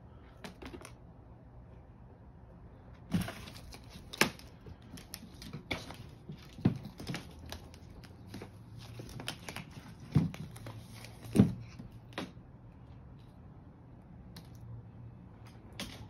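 A cat scrabbling and pouncing on a hardwood floor while wrestling a wand toy: quick clicks of claws on wood and scuffling, with several thumps as it lands. The scuffle runs for several seconds in the middle, with only scattered clicks before and after.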